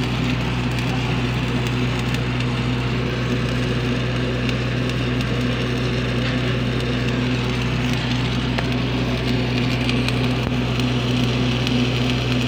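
Shielded metal arc (stick) welding: the electrode's arc crackling steadily as a fillet weld is run. A steady low hum runs underneath.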